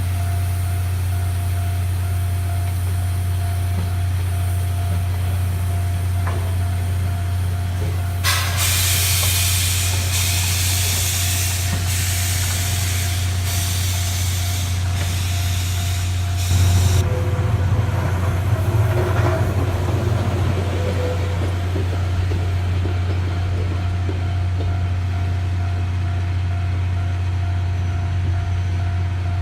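C57 180 steam locomotive venting steam: a loud hiss starts suddenly about eight seconds in and cuts off about nine seconds later. A brief louder burst of rumbling mechanical noise follows, over a steady low hum throughout.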